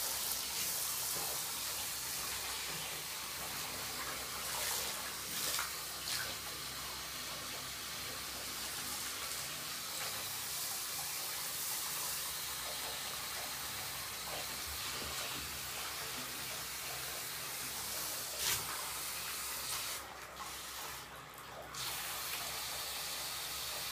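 Handheld shower head spraying water over a wet Maine Coon cat in a bathtub: a steady hiss of running water. The hiss drops away for about two seconds near the end, then comes back.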